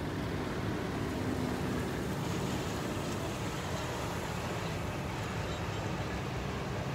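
A convoy of utility bucket trucks and pickup trucks driving slowly past: a steady rumble of truck engines and tyres on pavement.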